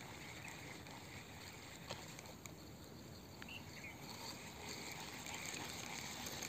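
Quiet outdoor ambience: a steady low hiss with a few faint chirps and small clicks.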